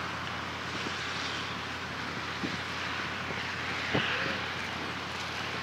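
Wind blowing over the microphone over a steady outdoor hiss, with one brief low knock from a gust about four seconds in.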